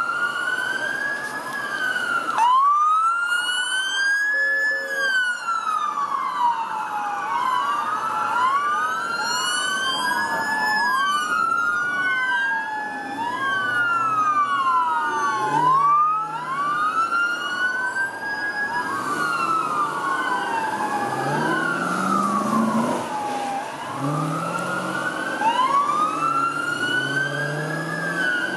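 Sirens of several police cruisers wailing together. Their rising and falling tones overlap out of step over the noise of passing traffic.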